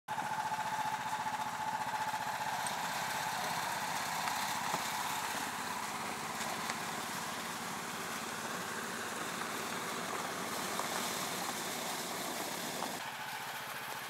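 Engine of a Rybak motorized towing sled (motor-dog) running steadily under load as it pulls a cargo sled across snow, growing slightly quieter as it moves away.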